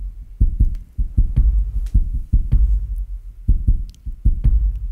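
Intro music carried by a deep, repeating bass thump, a few beats a second, with little above it.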